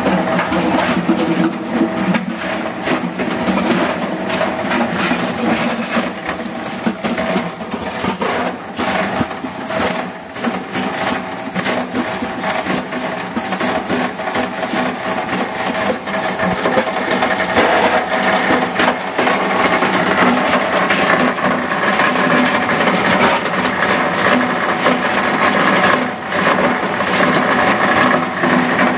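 Cumberland 20 hp plastic granulator running, its bearings newly replaced and its blades freshly sharpened. It makes a steady machine hum studded with many sharp clicks and cracks, and grows louder a little past halfway.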